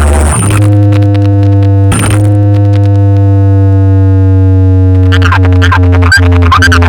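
Loud electronic DJ music played over a large sound-box system: a heavy sustained bass drone under a synth chord that slowly falls in pitch, with the busier beat and chirping synth sounds coming back about five seconds in.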